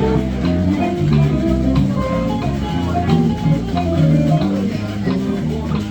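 Live jazz duo playing on plucked string instruments: a low bass line stepping from note to note about twice a second under guitar chords and melody.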